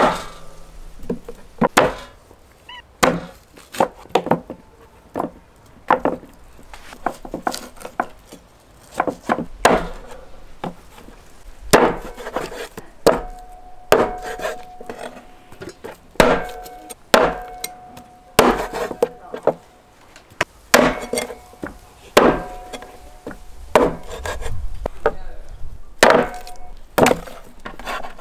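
Kitchen cleaver chopping lamb ribs apart on a wooden chopping board: a long series of sharp, uneven chops, roughly one a second.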